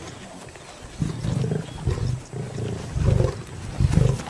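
African lions growling as they crowd over a buffalo carcass and feed, the sound of feeding rivalry at a kill. The growls are short and low and repeat in quick succession from about a second in.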